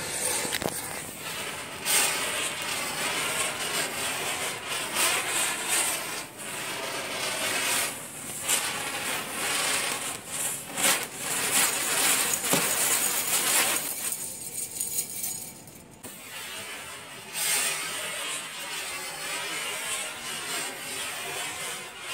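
A Cock-brand ground chakkar (Diwali ground-spinner firework), unrolled and hung on a wire, burning with a steady fizzing hiss and crackle of sparks. It catches right at the start, dies down about two-thirds of the way through, then flares up again.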